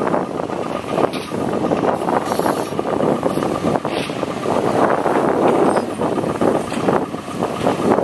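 Caterpillar 420F backhoe loader's diesel engine running as the machine drives and turns, with a steady, rough sound.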